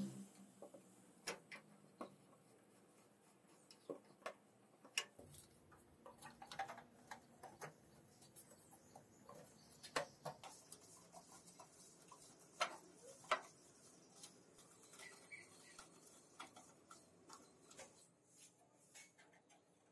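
Faint, irregular clicks and taps of small hard parts and tools being handled, with a few sharper knocks about ten and thirteen seconds in.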